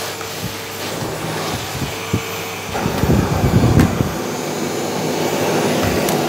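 Electrolux Silent Performer ESPC71DBT 650 W bagless vacuum cleaner running steadily, with a louder, uneven stretch about three seconds in as the nozzle works over the floor.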